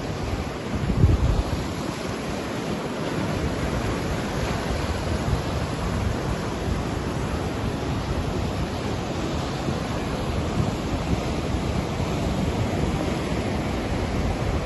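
Sea surf breaking over and washing around flat rock shelves at the shoreline, a steady rush of waves. Wind buffets the microphone, with a stronger gust about a second in.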